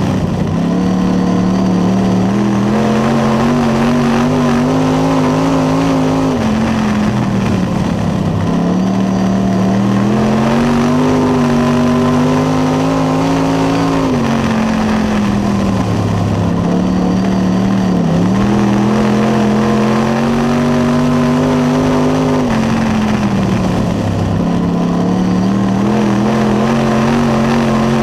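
Late model race car's V8 engine heard from inside the cockpit, running hard: its pitch climbs down each straight and drops sharply as the driver lifts for the turns, once every eight seconds or so, lap after lap.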